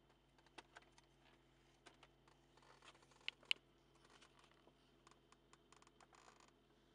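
A car's centre-console armrest lid being unlatched and lifted open: scattered light clicks and rubbing, with two sharp latch clicks about halfway through, then more light rattling and rubbing of the lid and trim.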